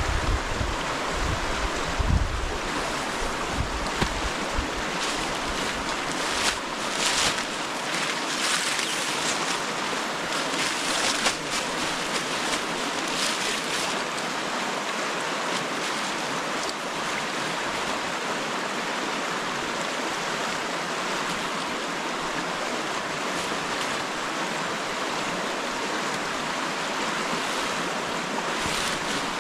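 River water rushing steadily, a constant even roar of flowing water, with a few low thumps in the first two seconds.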